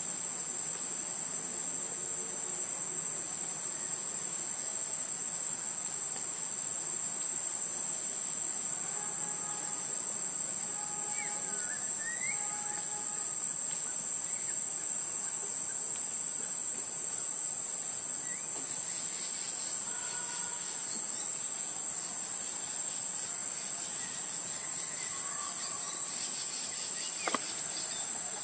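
Insects droning in a steady, high-pitched chorus, with a few faint short calls in the middle and a single sharp click near the end.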